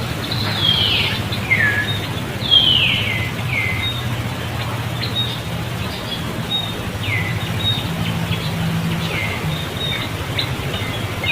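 High-pitched animal calls, each sliding down in pitch over about half a second, heard about seven times at uneven spacing over a steady low hum.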